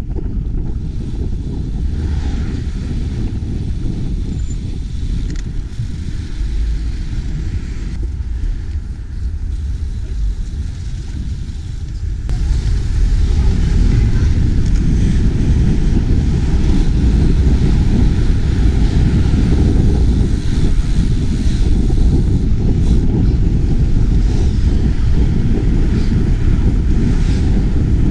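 Wind buffeting the microphone of a chest-mounted GoPro on a moving bicycle, a steady low rumble mixed with street traffic. It gets louder about twelve seconds in.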